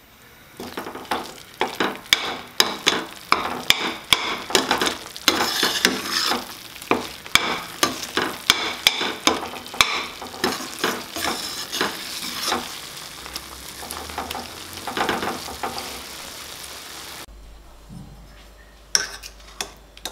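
Stainless steel ladle stirring thick, oily tomato pickle paste in a stainless steel pan, scraping and knocking the pan about two to three times a second while the paste sizzles. The stirring eases off after about 12 seconds, and two clinks follow near the end.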